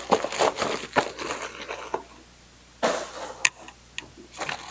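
Thin plastic bag rustling and crinkling as a small cardboard-boxed item is pushed into it, then another short burst of rustling and a few light knocks as items are handled in a box.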